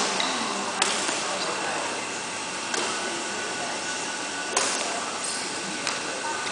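Badminton racket strikes on a shuttlecock, four sharp hits roughly every one and a half to two seconds, over the steady hiss of a large hall.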